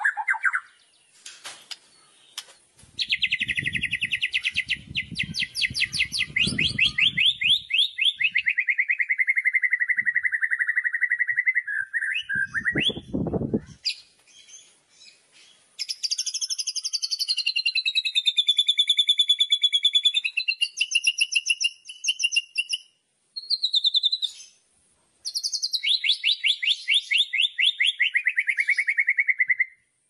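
White-rumped shama (murai batu) singing loud 'kretekan': long rattling phrases of fast repeated notes that slide down in pitch, three of them with short pauses between. A brief low thud comes a little before halfway.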